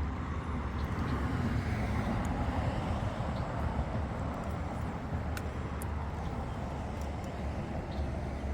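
Steady outdoor rushing noise with a deep low rumble, unchanging throughout, with a few faint ticks.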